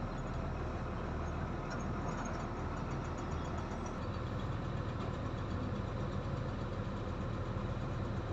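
Dump truck's diesel engine idling steadily while the truck stands for a driver's check.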